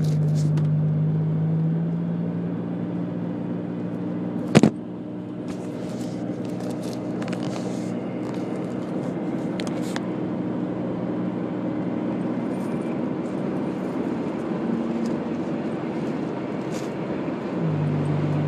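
Car engine hum and tyre and road noise heard from inside the cabin while driving. The hum drops a little about two seconds in and rises again near the end. A single sharp click about four and a half seconds in is the loudest sound.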